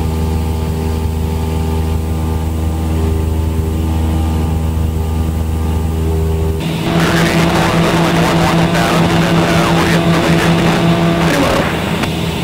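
Cessna 172's piston engine droning steadily through the cockpit audio, a stack of even tones. About six and a half seconds in, a loud hiss with changed tones comes over it for about five seconds.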